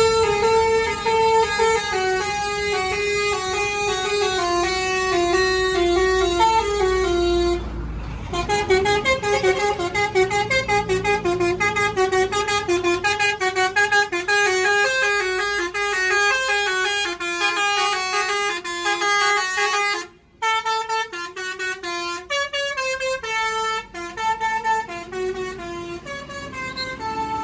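Telolet horn on a DAMRI bus, a multi-tone musical horn, playing a quick tune of stepped notes. It breaks off briefly about 8 seconds in and again around 20 seconds, with a low engine rumble beneath the first part.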